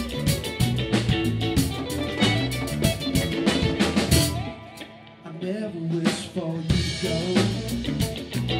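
Rock band playing live: drum kit and electric guitars. About halfway through the band drops away for a couple of seconds, leaving a single guitar line, then the drums come back in.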